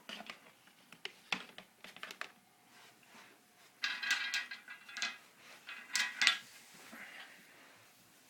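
Two harsh coughing bursts, one about four seconds in and one about six seconds in, among light clicks and taps.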